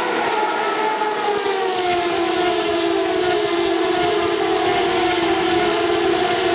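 Formula Renault 3.5 single-seaters' V8 engines running at high revs as the cars pass on the straight. Several engine notes slide down in pitch over the first couple of seconds, then hold steady.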